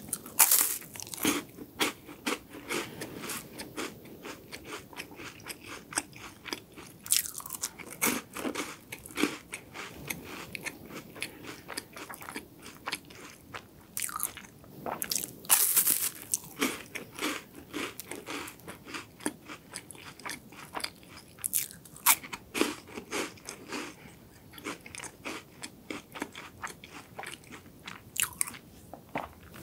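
Close-miked crunching of crisp Loacker cream-filled wafers. A sharp bite comes at the start, then rapid crackly chewing, with several louder crunches along the way.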